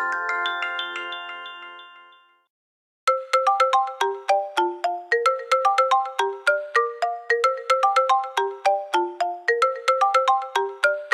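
iPhone SE (1st generation) ringtones: a chiming ringtone fades out, and after a short silence about three seconds in, the next ringtone starts. The new one is a fast melody of short, bright notes, about five a second, jumping up and down in pitch.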